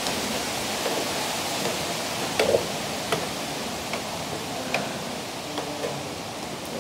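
Footsteps going down stair treads, a faint knock about every 0.7 s, over a steady rushing hiss.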